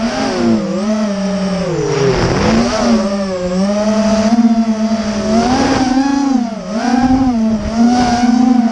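Brushless motors of a 250-size FPV racing quadcopter whining, the pitch constantly rising and falling with throttle, with a deep dip about two seconds in.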